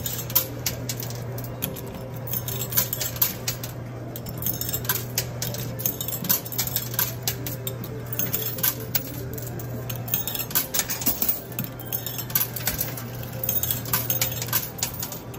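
Quarters clattering and clinking as they are dropped one after another into a coin pusher machine and land on the coins piled on its playfield. The clinks come irregularly, several a second, over a steady low hum.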